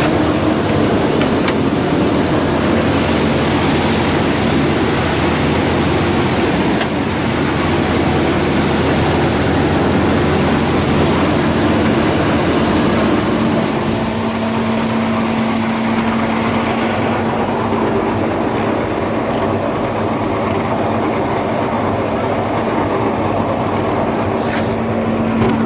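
Satake rice huller running steadily. About halfway through the deeper rumble drops away, leaving a steady hum.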